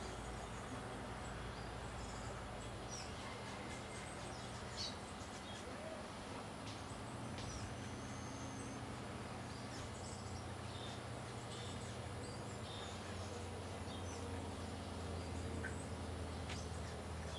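Tropical forest ambience: a steady hiss and low hum with scattered short, high chirps from small birds and insects.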